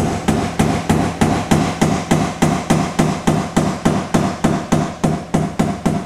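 Plastic hammer tapping steadily on top of a bicycle crank arm, about three taps a second, driving the loosened bottom bracket along the velomobile's boom.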